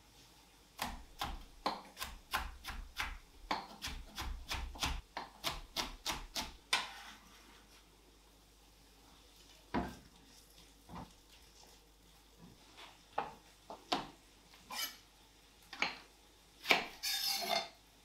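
Chef's knife chopping red pepper on an end-grain wooden cutting board: a quick run of knocks, about three a second, for roughly six seconds, then slower, scattered cuts. A short scrape on the board comes near the end.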